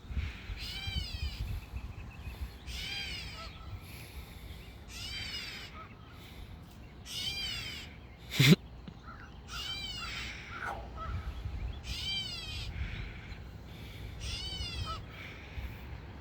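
A crow cawing over and over, one call about every two seconds, eight calls in all. A single loud knock about halfway through, over a low rumble.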